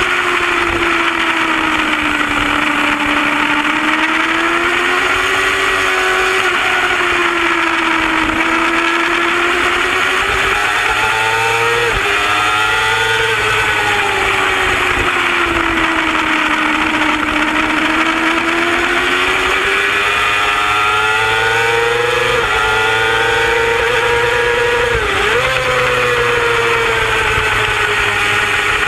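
A racing superbike's engine at high revs, heard from on board at track speed. Its pitch climbs and falls in long sweeps as the rider works the throttle through the corners, with a few brief sharp dips, over a steady rush of wind.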